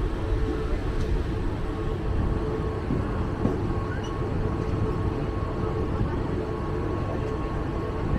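Mumbai suburban electric train (EMU) running at speed, heard from inside the coach: a steady rumble of wheels on rails with a faint continuous hum, and a couple of sharp knocks from the track.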